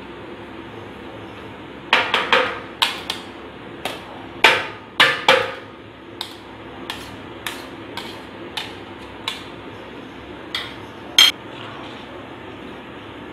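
Stainless-steel mesh strainer and steel spoon knocking on each other and on a steel plate, shaking out freshly fried moong dal. The sharp metal knocks start about two seconds in, loud and close together at first, then lighter taps about twice a second, ending with a bright clink.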